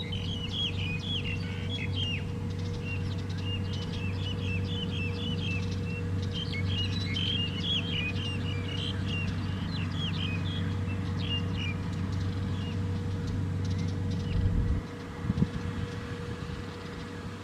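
Kubota DC-70 Plus combine harvester's diesel engine running steadily, with many small birds chirping busily over it. About fourteen seconds in, the engine sound drops away and a few low thumps follow.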